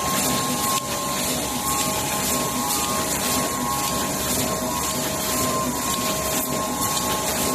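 Automatic UV screen printing machine for plastic tubes running, giving a steady mechanical whir with a constant high-pitched hum over it.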